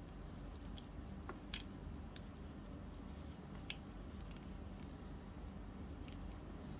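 Fingers kneading a small lump of bread dough in a tiny metal bowl: soft squishing with scattered light clicks, the two sharpest about one and a half and three and a half seconds in, over a steady low hum.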